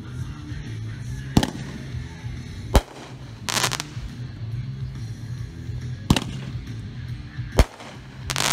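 Golden Bear 'Pyro Bear' aerial firework bursting overhead: four sharp bangs a second and a half to three seconds apart, with two short spells of crackling stars.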